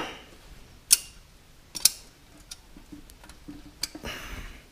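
Steel gears in a Minneapolis-Moline 445 tractor gearbox clicking and clinking as a sliding gear is worked by hand along the shaft to push a snap ring into place: two sharp metallic clicks about a second apart, then a few lighter ticks.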